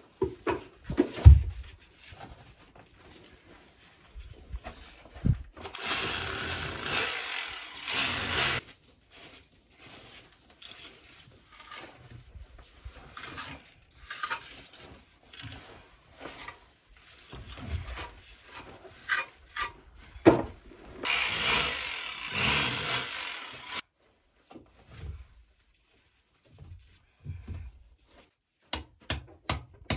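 Hand masonry work on a stone wall: scattered knocks of stones and tools, two stretches of scraping a few seconds long, and near the end a quick run of regular hammer taps.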